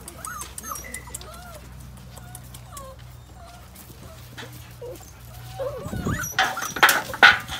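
Australian Shepherd puppies whimpering and whining in many short, high cries that bend up and down. About six seconds in come a few louder, harsh noises, the loudest near the end.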